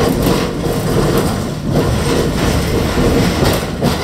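V3A-93 tram running along its track, heard from inside the car: a steady low rumble from the wheels and running gear, with irregular knocks and rattles.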